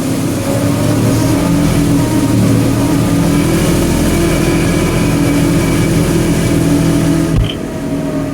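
New Holland tractor's diesel engine running steadily under load while it drives a straw bedder. About seven seconds in there is a click, the engine's deep note drops away and a faint whine falls in pitch.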